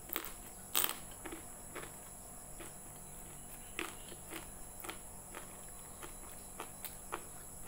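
Close-up chewing of a mouthful of fried rice vermicelli: wet mouth clicks and smacks, the loudest two in the first second, then smaller ones every second or so.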